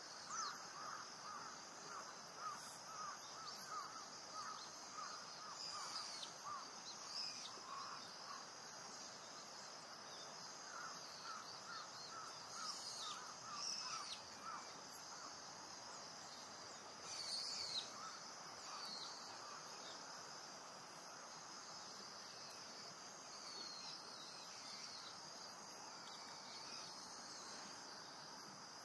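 Faint natural ambience: steady high insect chirring, with runs of quick repeated calls in the first half and a few short, high, falling bird chirps.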